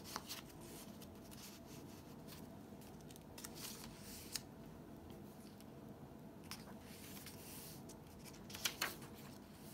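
Paper rustling softly in a few brief scrapes and crinkles as the pages of a handmade junk journal are turned and its tags and cards handled.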